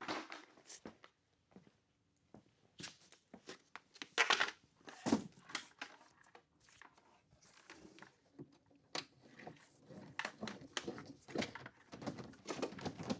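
Handling sounds of a ground wire being run and worked into place: scattered clicks, light knocks and rustling, irregular and with short pauses.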